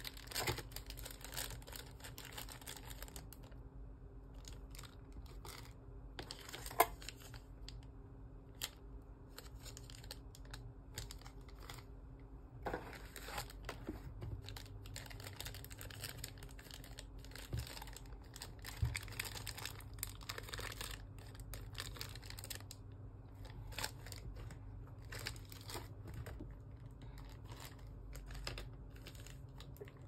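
Clear plastic bags crinkling and rustling as keyboard accessories are handled and lifted out of a cardboard box, with scattered small knocks of cardboard and packaging. One sharp knock about seven seconds in is the loudest sound.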